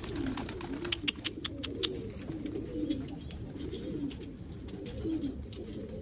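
A flock of domestic pigeons cooing, several birds overlapping, with a quick run of short clicks about a second in.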